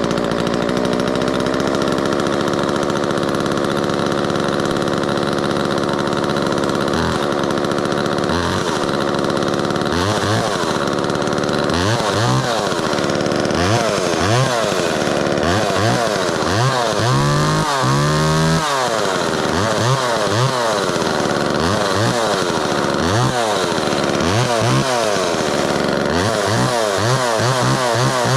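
Homelite XL two-stroke chainsaw running just after a cold start on half choke. It runs steadily at first, then from about eight seconds in it is revved up and down over and over, the revs coming quicker near the end.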